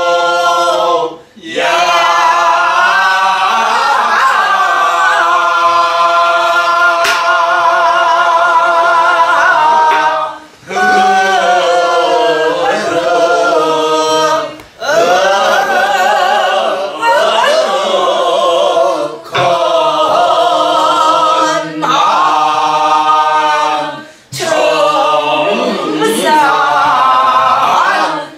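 A group of voices singing a Namdo (southwestern Korean) folk song together without accompaniment. The long held notes waver with a wide vibrato, and the phrases are broken by short pauses every few seconds.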